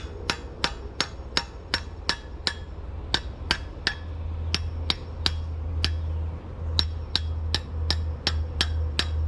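Hammer striking steel, about three blows a second with a couple of short pauses, driving a pivot pin into an excavator bucket linkage. A steady low hum runs underneath.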